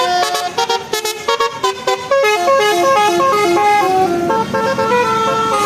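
Bus telolet horn, a Basuri-style multi-tone musical horn, playing a melody of stepped notes: a fast run of short notes, then longer held notes in the second half.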